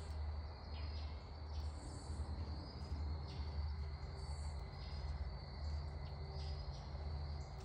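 Faint steady insect chirring, a high thin band with short repeated pulses, over a continuous low rumble.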